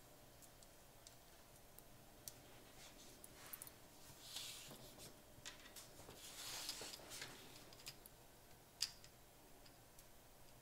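Faint handling sounds of small parts on an opened Digital Compact Cassette shell: light plastic clicks and scrapes from fingers and a thin metal pick, a couple of soft rubbing stretches in the middle, and one sharper click near the end.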